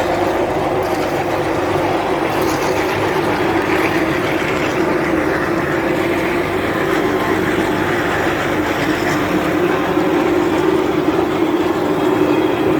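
QST3000D chain saw attachment on a Komatsu WB97-S backhoe loader running steadily together with the machine's engine: a loud, unbroken mechanical drone with a strong low hum, getting slightly louder near the end.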